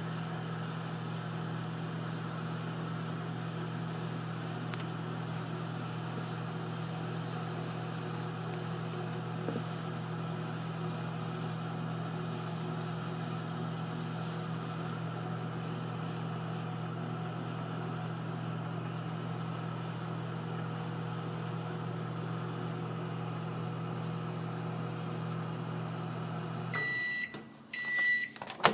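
Microwave oven running with a steady electrical hum, which stops about 27 seconds in; the oven then beeps three times to signal the end of its cycle, followed by a sharp clack.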